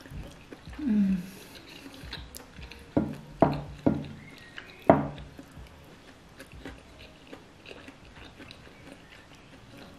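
Eating sounds of fried chicken being chewed and torn apart by hand, with a short falling hum about a second in. Four sharp knocks come in the middle from a wobbly table rocking.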